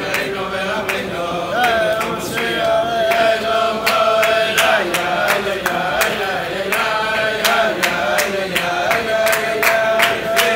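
Men chanting a repetitive melody in unison, with a steady percussive beat.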